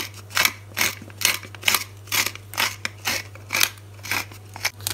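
Black pepper grinder with a glass bottle being twisted by hand, its grinding mechanism crunching peppercorns in short, even strokes about two a second.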